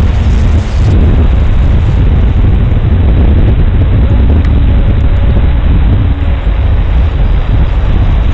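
Heavy wind buffeting on the microphone, a loud low rumble. Faintly under it, the engine and propeller of a radio-controlled Extra 330S aerobatic model plane drone in flight, the tone shifting in pitch as it manoeuvres.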